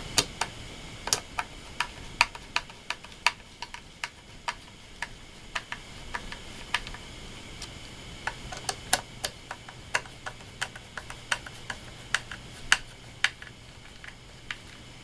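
Wood screws being driven by hand with a screwdriver through an MDF base: a run of sharp clicks, two or three a second, unevenly spaced, as the screwdriver turns.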